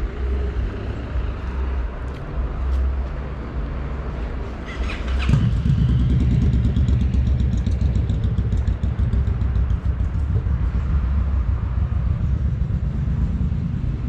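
Street traffic rumbling, then a motorbike engine running close by, coming in suddenly about five seconds in and carrying on as a steady low drone.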